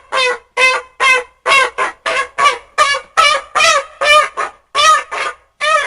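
Eastern moa call sound effect: a rapid series of short, goose-like honks, about three a second, some in close pairs.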